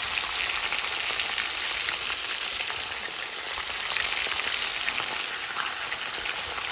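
Batter-coated prawns deep-frying in hot oil: a steady sizzle with fine, continual crackling as the gram-flour coating crisps.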